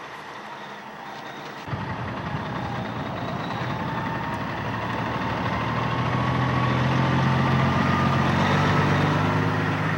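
Ten-wheel dump truck's diesel engine running, coming in suddenly about two seconds in and growing steadily louder.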